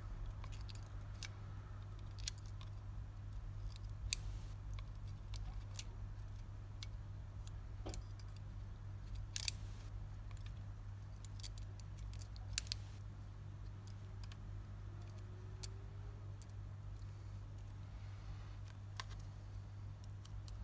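Scattered small clicks and taps of tools on a Homtom ZOJI Z7 smartphone's plastic and metal parts during disassembly, a few of them sharper than the rest, over a steady low electrical hum.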